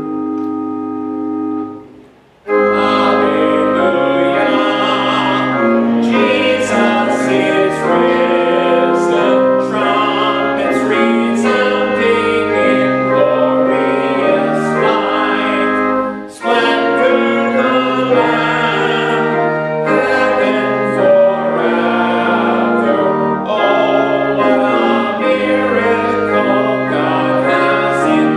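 A sustained organ chord ends about two seconds in; then a hymn begins, with voices singing over keyboard accompaniment.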